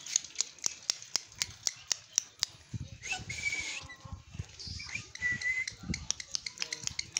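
Caged green parakeet giving a harsh screech about three seconds in and a shorter, clearer call about five seconds in. Under both runs a steady patter of sharp clicks, several a second.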